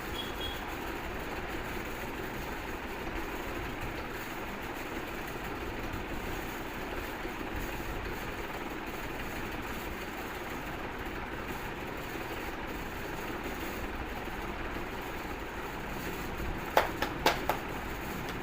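Steady background noise. Near the end comes a quick run of four sharp cracks in under a second.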